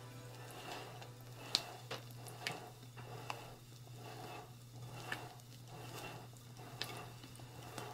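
Rubber spatula folding meringue into chiffon cake batter in a glass bowl: soft, wet squelching strokes about once a second, with a few sharp clicks.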